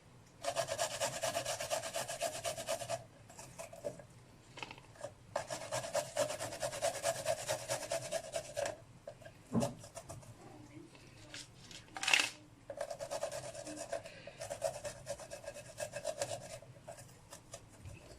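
Garlic cloves being grated on a hand grater: three spells of rapid rasping strokes, each a few seconds long, with short pauses between them and a sharp knock between the second and third.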